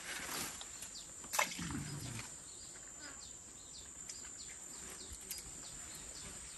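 Forest ambience by a jungle creek: a steady high-pitched insect drone with scattered short bird or insect chirps. A single sharper, louder sound stands out about a second and a half in.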